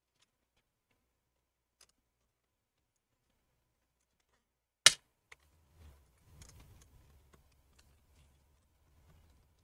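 Near silence, then about halfway through a single sharp click, followed by faint handling noise and small scattered clicks of tools prying at the MacBook Air's Wi-Fi antenna bracket, a stiff metal clip that has to be wiggled free.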